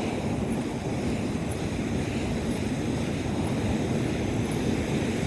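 Sea surf washing on a sandy beach, mixed with a steady rumble of wind on the microphone.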